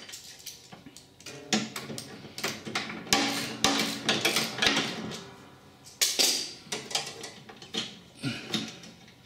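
Irregular metallic clinks and knocks of hand tools against a ride-on mower's steel deck and tension-pulley bracket, as a spanner and ratchet are worked onto the pulley's nut and bolt to undo it.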